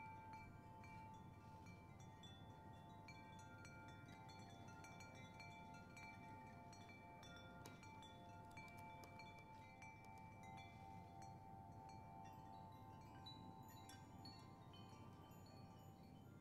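Faint, soft chimes: several bell-like tones ring and hold together, one steady tone the strongest throughout, with small tinkling notes coming and going.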